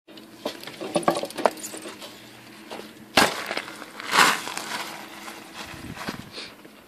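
Bicycle ridden over loose gravel close to the ground: scattered clicks and crunches, a sharp knock about three seconds in and a loud gravel crunch about a second later.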